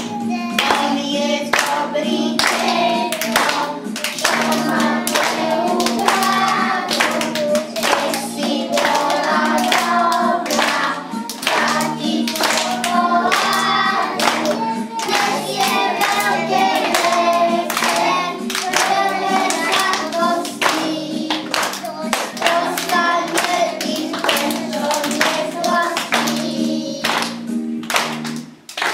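A group of young children singing a Christmas song over backing music, clapping their hands in time. The song stops just before the end.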